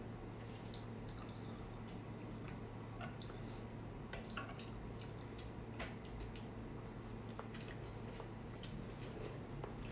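Scattered wet clicks and squishes of braised pork trotters being picked from the plate and bitten into by hand, over a steady low hum.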